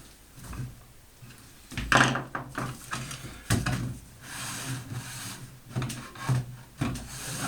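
Irregular knocks and sliding scrapes as an Einhell TH-RO 1100 E plunge router is handled and pushed across a narrow base platform, with its motor not running. The loudest knock comes about two seconds in.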